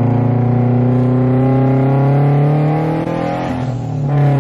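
Supercharged Scion FR-S's 2.0-litre flat-four accelerating hard. The engine note rises steadily for about two seconds, then drops as the throttle eases off about three seconds in, and swells briefly again near the end.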